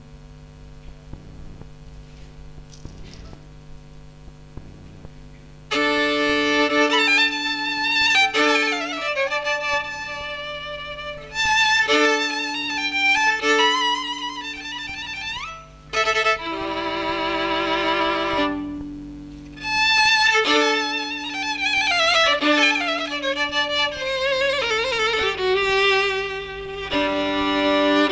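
A low steady hum for about six seconds, then a solo violin starts playing a melody, with sliding notes and vibrato on held notes.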